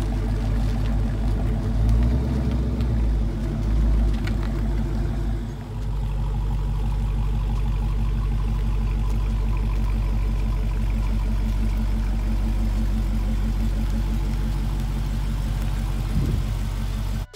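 Car engine running close by with a deep, low rumble. It varies over the first few seconds as the car is moved, then settles into a steady idle.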